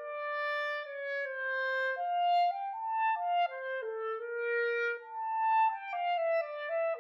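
Solo clarinet playing an unaccompanied melody one note at a time. The line climbs and falls in short steps, rising to its highest notes about two to three seconds in and again about five seconds in, then stepping back down.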